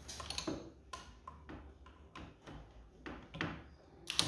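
Light metal clicks, about three a second, as the socket and extension bar are worked onto the scooter's flywheel nut. Right at the end a sharp knock, then a cordless impact wrench starts hammering at the reverse-threaded flywheel nut.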